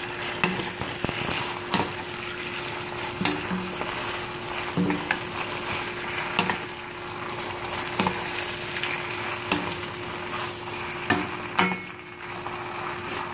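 Noodles, chicken and sauce sizzling in a hot wok as they are stir-fried and tossed with two wooden spatulas. The spatulas knock against the pan about every second and a half.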